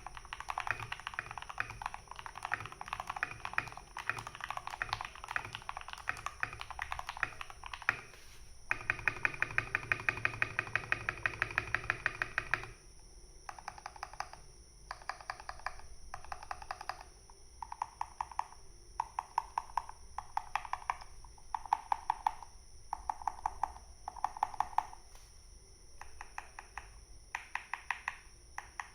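RK61 mechanical keyboard with lubed Gateron Milky Yellow Pro linear switches and PBT keycaps being typed on: a fast continuous run of keystrokes, then about four seconds of rapid, evenly paced key strikes, then short bursts of typing with pauses between them.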